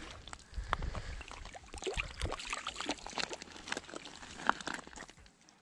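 Small splashes and drips of water from a hooked trout being reeled in through shallow water and lifted out on the line, with irregular small splashes that die down about five seconds in.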